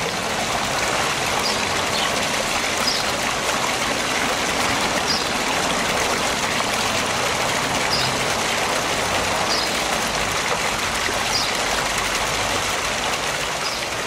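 Small rock-garden waterfall fountain: water falling steadily over rocks and splashing into a shallow pond.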